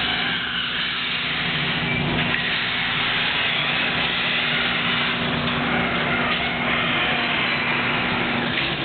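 Electric garage door opener running while the sectional door rises: a steady motor hum with the noise of the door travelling. It cuts off suddenly near the end as the door reaches the fully open position.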